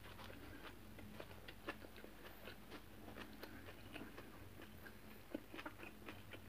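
Faint chewing of a mouthful of leafy greens wrapped around meat, with small irregular crunches, over a low steady hum.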